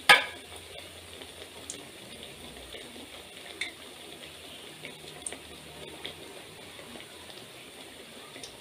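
Thattai rice crackers deep-frying in hot oil in a steel pot: a steady faint sizzle of bubbling oil with a few small pops. A single sharp knock sounds just after the start.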